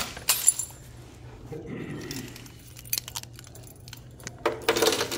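Close-up handling noise: jangling clicks and rustles near the microphone as the phone is moved about, with a louder scraping rattle near the end.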